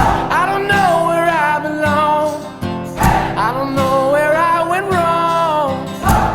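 Background music: a folk-pop song with singing over strummed acoustic guitar.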